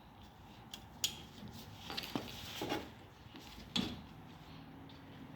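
Socket wrench working the brake caliper bolts: a few separate metal clinks and knocks, the sharpest about a second in and near the end.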